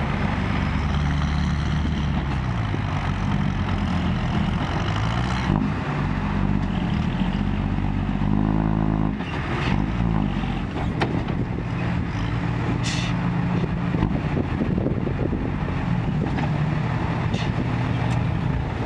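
Isuzu Forward FXZ 320 dump truck's diesel engine running under load while the raised bed tips out a load of dirt, its revs rising and falling.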